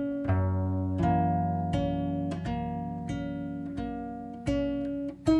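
Background music: an acoustic guitar playing slow plucked notes and chords, a new one about every two-thirds of a second, each ringing out and fading.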